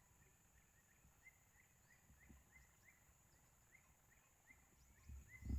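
Faint forest ambience: a bird repeating short rising chirps, about three a second, over a steady high-pitched drone. A few low knocks come near the end.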